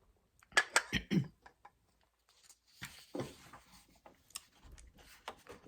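Coffee cup being handled: a few sharp clinks and knocks in quick succession a little over half a second in, then soft rustling with scattered small clicks.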